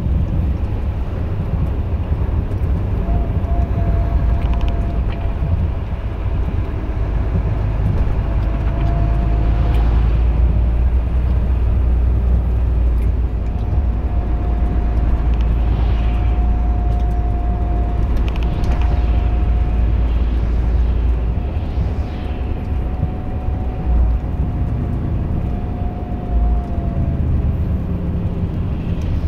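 Volvo FH13 500 truck's 13-litre straight-six diesel, heard inside the cab while driving: a steady low drone, with a thin steady whine that comes and goes. The low rumble eases a little past the middle.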